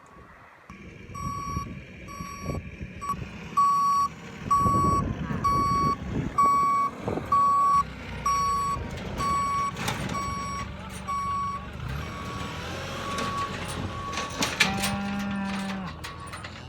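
A farm vehicle's reversing alarm beeping steadily, about one and a half beeps a second, over its engine running; the beeping stops about 14 s in. Near the end a cow gives a long low moo.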